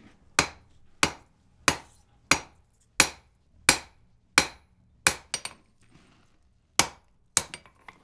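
Hand hammer forging a bar of wrought iron on an anvil: about ten sharp, ringing blows at a steady pace of roughly one and a half a second, a few lighter taps among them, and a short pause before the last two blows.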